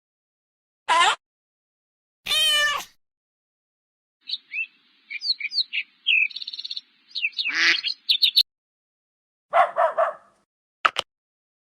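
A run of separate short animal calls with silence between them: two single calls in the first three seconds, a cluster of quick bird chirps and tweets in the middle, then another short call and a click near the end.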